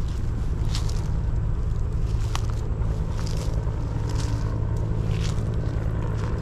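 Bell UH-1 "Huey" military helicopter running in a steady low drone, with footsteps crackling and swishing through grass and brush.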